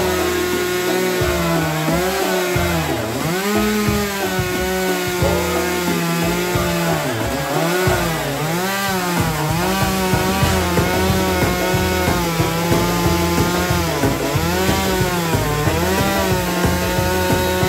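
Chainsaw cutting firewood, its pitch sagging under load in each cut and recovering in between, again and again.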